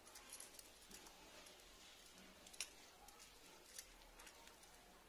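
Near silence: quiet room tone with a few faint, sharp clicks, two of them a little over a second apart in the second half.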